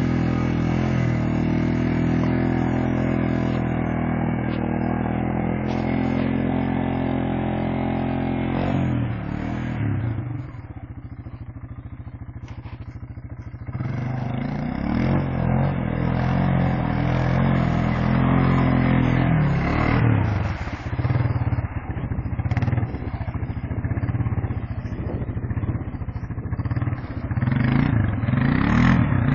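ATV engine revving hard under load as the quad ploughs through deep mud and water. It holds high revs for about eight seconds, drops back to a low idle for a few seconds, then comes back in uneven bursts of throttle as the quad churns out of the mud.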